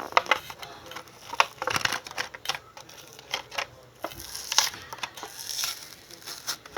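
Hot Wheels blister-card packaging being opened by hand: a quick run of sharp crackles, clicks and tearing from cardboard and plastic.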